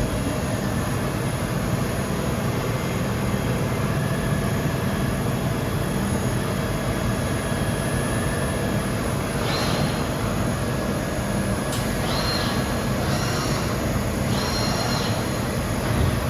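Micron VCP 710 vertical machining center running with a steady mechanical hum. In the second half it gives four short high-pitched squeals.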